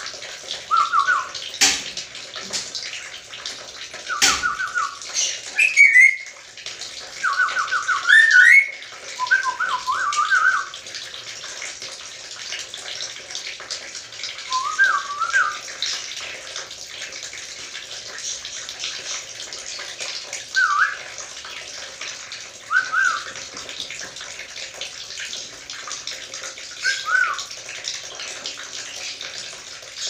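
Black-capped lory whistling short, rapidly repeated phrases over a steady hiss: many in the first ten seconds, then single phrases every few seconds. Two sharp clicks come about two and four seconds in.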